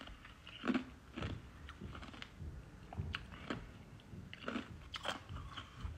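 Soft, irregular clicks and smacks close to a phone's microphone, a dozen or so spread unevenly through the quiet.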